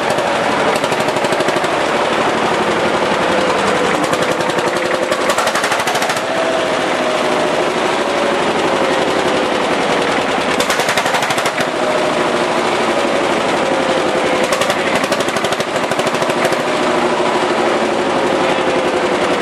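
Lanz Bulldog tractor's single-cylinder two-stroke hot-bulb engine running, a loud, rapid, steady train of exhaust beats.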